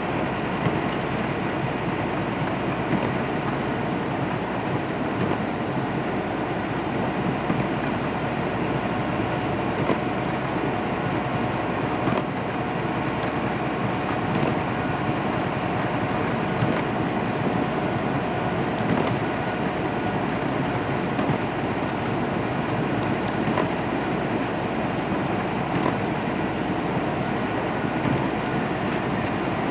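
Steady drone inside a semi-truck's cab at highway speed: the diesel engine running and the tyres hissing on wet pavement.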